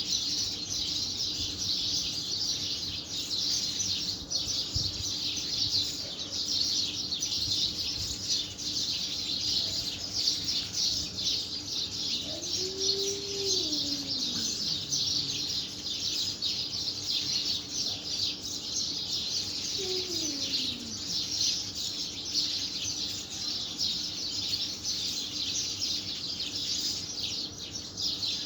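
Many small birds chirping continuously in a dense, overlapping chatter, with two faint lower falling calls about twelve and twenty seconds in.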